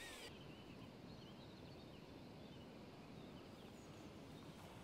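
Near silence: faint outdoor ambience with scattered faint bird chirps.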